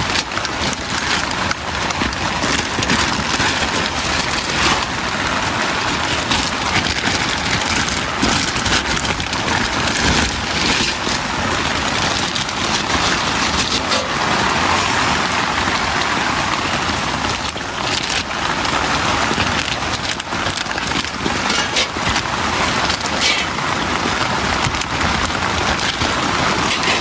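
Heavy rain falling steadily: a dense, even hiss with many separate drop impacts all through.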